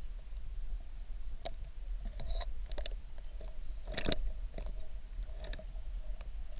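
Underwater sound heard through a submerged camera in a river: a steady low rumble of the current with a faint hum and scattered sharp clicks and ticks, the loudest cluster about four seconds in.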